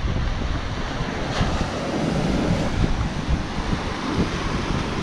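Surf breaking and washing onto the beach, with wind buffeting the microphone as a steady low rumble.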